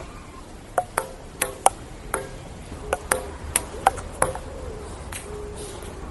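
Table tennis rally: a ping-pong ball clicking sharply off paddles and table, about a dozen hits at a quick, uneven pace.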